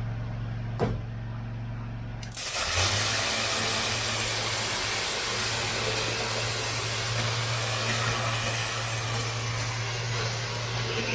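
Briggs & Stratton pressure washer's motor running with a steady hum; about two seconds in, the high-pressure spray starts and hisses steadily against the patio paving.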